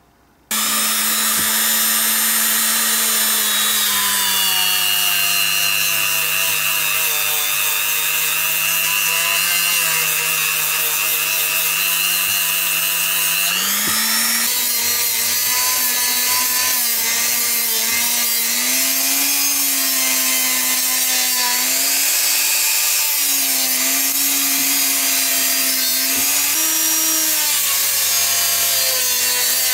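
Handheld rotary tool spinning a small polishing wheel against a diecast metal baseplate: a steady high motor whine whose pitch sags and wavers as the piece is pressed against the wheel, rising sharply about halfway through.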